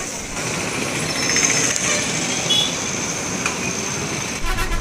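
A vehicle engine running amid steady, noisy traffic sound, with a horn toot starting near the end.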